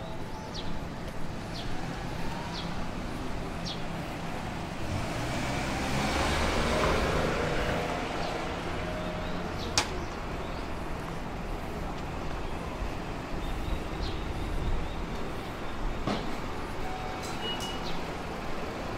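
Street traffic, with one motor vehicle passing close by that swells and fades around the middle. Light regular ticks of footsteps are heard in the first few seconds.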